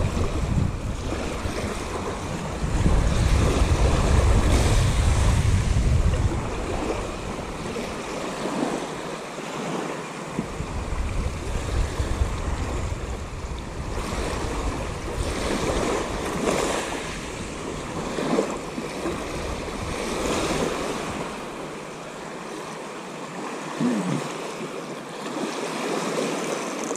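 Small waves breaking and washing up a sandy shore, with gusts of wind buffeting the microphone, strongest a few seconds in.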